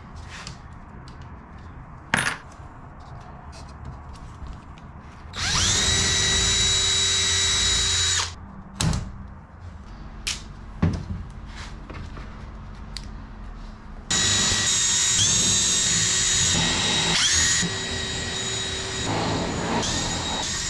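Power drill spinning up with a high whine for about three seconds, then, after a few sharp clicks, running again for the last six seconds with its pitch dipping several times as the bit loads up drilling holes in the aircraft's wing spar parts.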